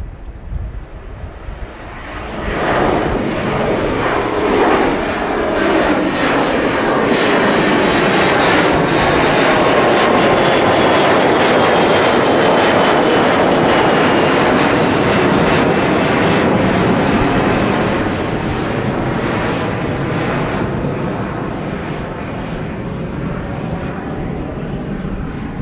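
Boeing 737-400 airliner's two CFM56-3 turbofan engines at climb power as it passes overhead after take-off. The jet noise swells about two seconds in, peaks as it passes overhead, then fades as it flies away. A high whine slides downward in pitch through the passage.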